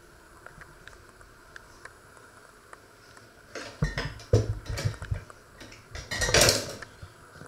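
A few knocks and clatters of cookware being handled, ending in a louder, brief scraping rustle, after a few seconds of faint room tone.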